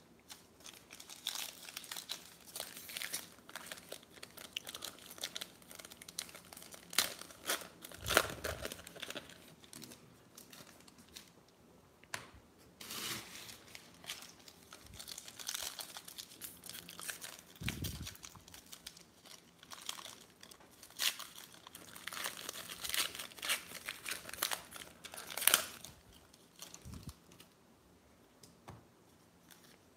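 Foil trading-card pack wrappers crinkling and tearing in the hands as packs are opened, in short, scattered crackles, with one sharper crackle about 25 seconds in.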